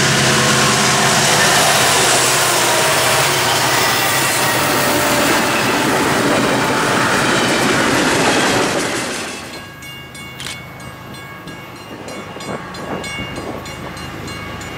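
Union Pacific freight train led by an EMD SD70ACe diesel locomotive passing close at speed: loud engine noise, then the clatter of wheels on rail as the following locomotives and stack cars go by. About nine seconds in the sound cuts to a much quieter one, a train approaching from a distance.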